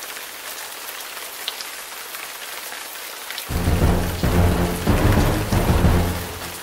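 Steady rain hiss, joined about three and a half seconds in by loud rolling thunder that rumbles in waves for about three seconds.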